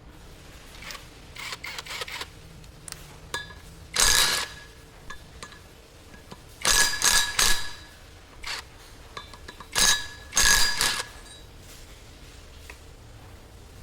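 Steel parts struck together in bursts, each strike ringing briefly: metal-on-metal clanks during the dismantling of a bulldozer. There are three main groups of strikes, about four, seven and ten seconds in, with lighter clinks between them.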